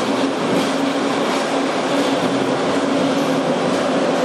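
Steady machinery running noise with a constant low hum, unbroken and even in level.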